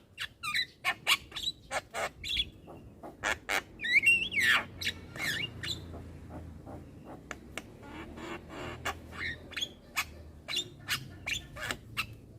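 Young Javan myna chattering: a fast run of clicks and short harsh notes, with one loud whistled note that bends up and down about four seconds in.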